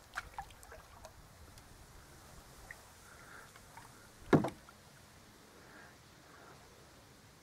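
Canoe being paddled: a few small clicks and faint splashes of the paddle in the water, then about four seconds in a single loud knock against the canoe's hull.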